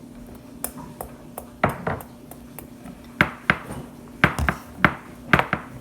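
A utensil knocking and tapping against a bowl while slime is mixed: about a dozen short, irregular taps, some with a brief ring, bunching up toward the end.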